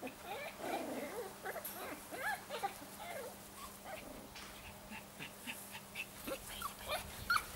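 Puppies whimpering and yipping: many short high-pitched calls that rise and fall, coming in quick succession.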